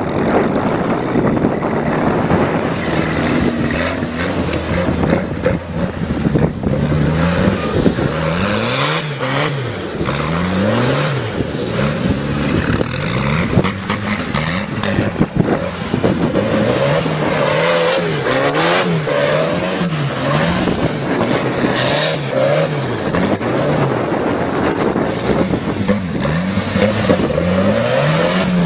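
Old tractor's engine revving hard, at first running steadily under load, then from several seconds in rising and falling in pitch over and over, about once a second, as the throttle is worked and the rear wheels spin on loose ground.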